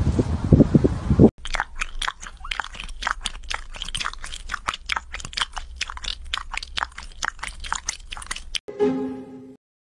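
A cat lapping water from a glass: a quick, even run of small wet clicks, about four or five a second. Before it, about a second of loud low rumbling thumps cuts off suddenly, and a short pitched sound comes near the end.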